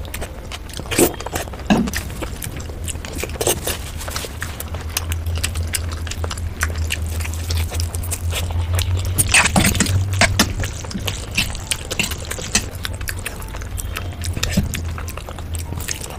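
Close-miked eating: a person chewing spicy noodles, soup and sauced fried chicken, with many wet mouth clicks and smacks, over a low steady hum.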